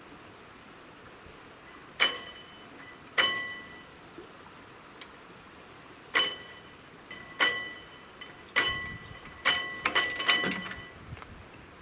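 Warning bell of mechanical level-crossing barriers ringing in about eight single strokes as the barrier arms are lowered, irregularly spaced and coming closer together near the end. Some lower clatter of the barrier gear comes with the last strokes.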